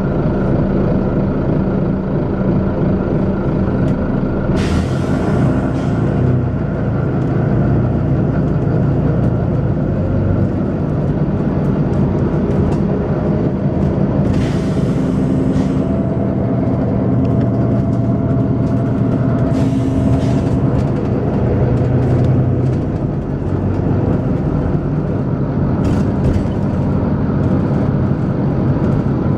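Volvo B9TL double-decker bus's six-cylinder diesel engine running hard with a steady thrashing drone, interrupted by several sharp hisses of compressed air from the bus's air system: three longer ones and a short pair near the end.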